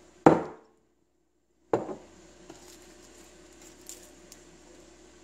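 A sharp knock of a glass bottle on the countertop, with a short ring, as garlic cloves are smashed. After a second of dead silence comes a softer knock, then faint small clicks and rustles as fingers pick through the peeled cloves and their papery skins.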